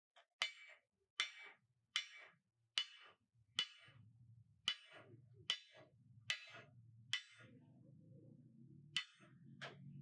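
Hand hammer striking metal in a steady rhythm, a little more than one blow a second, each blow ringing briefly. A faint low hum comes in about four seconds in.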